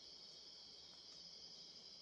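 Faint, steady, high-pitched chorus of night insects.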